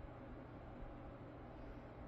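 Apple Pencil tip moving softly over the iPad's glass screen, a faint scratching over a steady low hiss.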